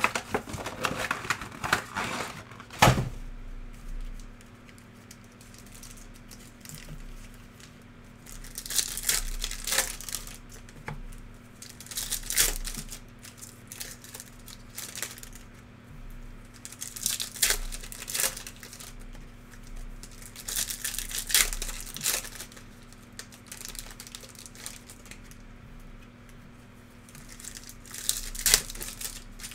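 Trading-card packs from a 2017-18 Optic basketball box being torn open and their wrappers crinkled, in short bursts every few seconds, with a sharp snap about three seconds in.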